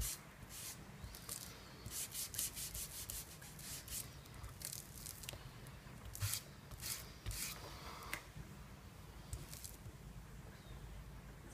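Hand-held paint applicator rubbed in short, quick strokes over a paper tag, spreading acrylic paint: a faint scuffing that comes in several short runs with pauses between.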